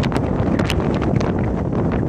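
Strong wind buffeting the microphone: a loud, steady low rumble broken by frequent sharp crackles.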